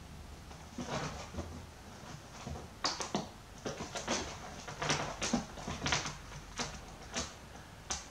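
Kittens' claws scratching and catching on woven armchair upholstery as they scramble over the armrest: a run of short, irregular scratchy sounds, busiest in the second half.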